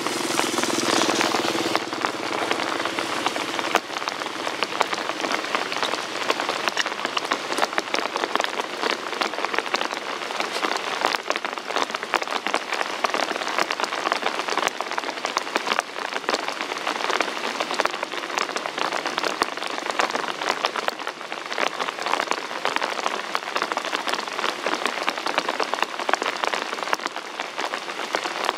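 Steady rain falling, with a dense patter of individual drops.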